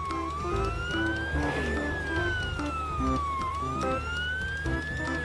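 Ambulance siren wailing, its pitch sliding slowly up and down twice, over background music.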